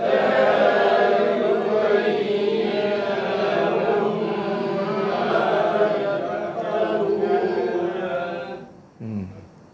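A group of voices reciting a Quranic verse together in unison, chanting 'ḥattā yubayyina lahum mā yattaqūn' after the teacher. The group recitation stops just under a second before the end, followed by a short single voice.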